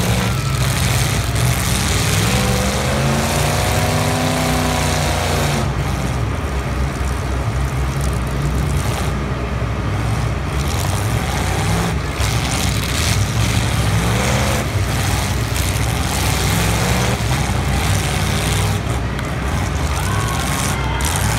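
Several demolition derby car engines running hard in a steady din, one revving up and back down about three to five seconds in, with shorter revs later on.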